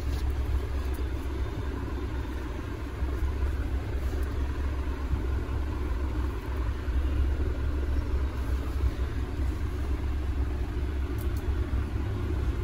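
A steady low rumble, with a couple of faint light clicks near the end.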